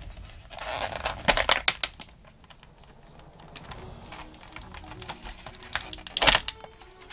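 Clear plastic blister packaging crackling and clicking as an action figure is pulled out of it. The noise comes in two clusters: one from about half a second in that lasts over a second, and a shorter, louder one near the end.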